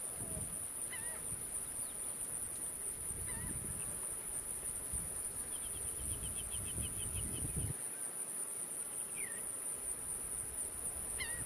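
Outdoor summer insect chorus: a steady, high-pitched drone throughout. Short bird chirps break in a few times, and a quick trill of about ten notes comes a little past the middle.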